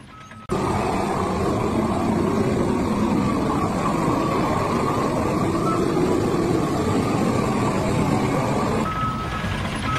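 Propane weed-burner torch roaring steadily as it chars wooden deck boards. The sound cuts in suddenly about half a second in.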